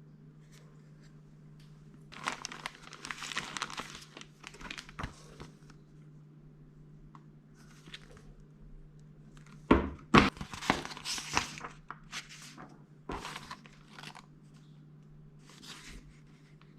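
Packaging being torn and crinkled, in bouts, with a couple of sharp knocks about ten and thirteen seconds in, over a steady low hum.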